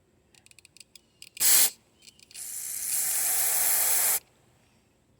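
Aerosol carburetor cleaner sprayed through the emulsion jet of a Tecumseh mower carburetor to clear its clogged center hole: a few light clicks, a short blast, then a steady hiss of about two seconds that stops abruptly.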